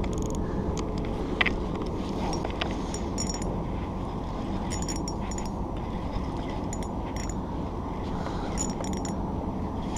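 Spinning reel being wound in as a small fish is brought to the boat: a pair of light metallic clicks about every two seconds over a steady low rush.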